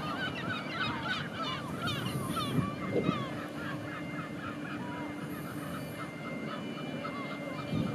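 A flock of waterfowl calling: many short, overlapping calls. A low steady hum joins about three seconds in.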